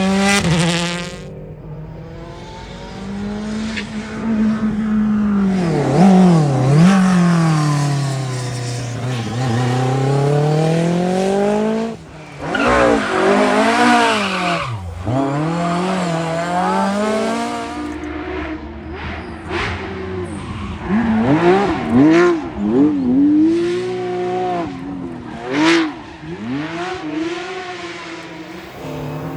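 Historic rally cars driven hard on a stage, one after another: engines revving up and dropping in pitch through gear changes and as each car goes past. In the second half come several short, sharp cracks.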